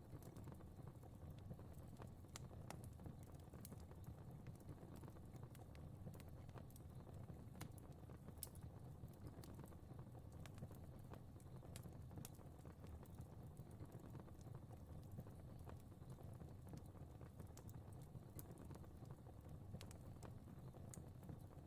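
Fire crackling: irregular sharp pops and snaps over a low, steady rumble of flames, all played quietly.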